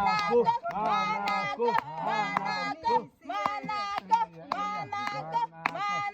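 Voices singing in short, repeated phrases over a held low note, with sharp claps or clicks scattered through.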